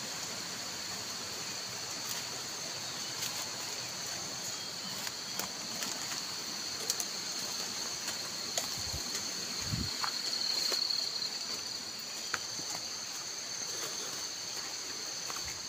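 A steady, high-pitched chorus of forest insects, crickets or cicadas, running on without a break. Scattered small clicks and snaps and a couple of low thumps come from someone pushing through undergrowth.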